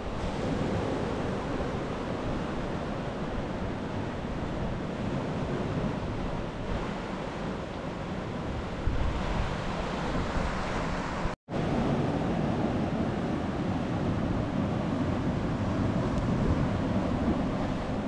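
Ocean surf breaking and washing over shoreline rocks, a steady rush of waves, with wind buffeting the microphone. The sound cuts out completely for a split second a little past the middle.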